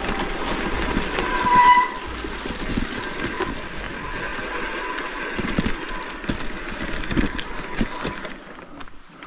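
Bicycle rattling and bumping down a steep, rain-washed dirt and stone track, its brakes squealing in held tones, loudest about one and a half seconds in. The rattle dies down shortly before the end.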